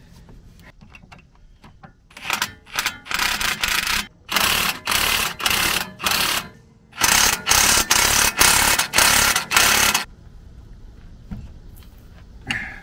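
Cordless impact wrench hammering in short repeated bursts, driving in the bolts that fasten the coilover strut to the steering knuckle. The bursts start about two seconds in and stop about ten seconds in, with a brief pause midway.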